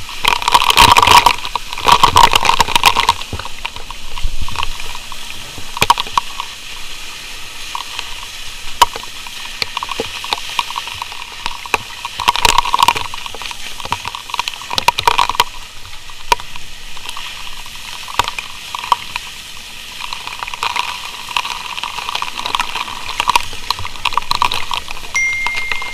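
Fire hose spraying water onto a burning wooden building: a continuous rushing hiss with many sharp cracks and knocks, louder at the start and again about halfway through.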